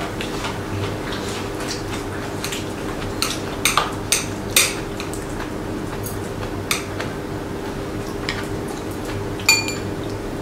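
Metal chopsticks and spoons clinking against ceramic bowls and plates as a meal is eaten, several sharp clinks with a cluster about four seconds in and a ringing tap near the end, over a steady low hum.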